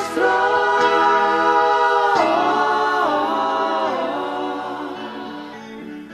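Music from a 1970s progressive rock album: a held chord of several voices singing in harmony, sliding down to a new chord twice and fading out near the end.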